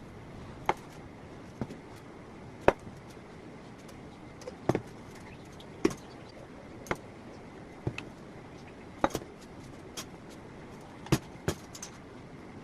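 Kitchen utensils knocking and clinking about once a second at an irregular pace, each a short sharp tap, over a quiet background.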